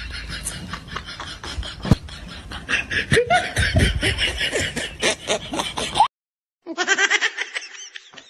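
Several people laughing in short bursts over open-air crowd noise. About six seconds in, the sound cuts out for half a second, and a different, edited-in sound follows.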